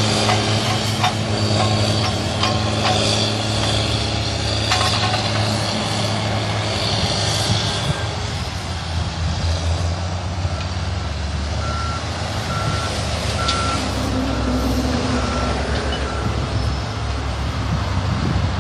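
Diesel engines of motor graders running steadily under load while grading dirt, a low continuous drone with a few sharp knocks in the first five seconds. From about ten seconds in, a reversing alarm beeps repeatedly for several seconds.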